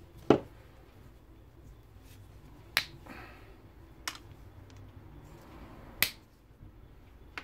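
Hard plastic scraps being snapped into small pieces by hand and with pliers: four sharp cracks a second or two apart, the first the loudest.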